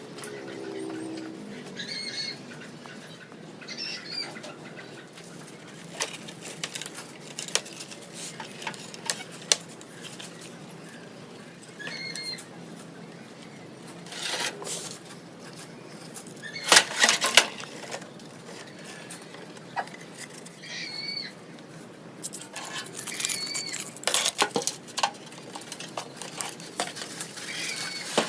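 Light clicks and clatter of small hard parts and tools being handled on a work surface, in irregular bursts, with short high chirps now and then.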